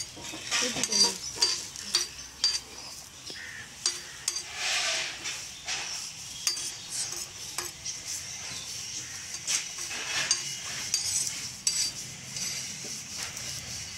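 A cloth wiped and rubbed across a hot black-iron paper-roast dosa tawa on a gas stove, with scattered clicks and knocks of the metal over a steady faint hiss.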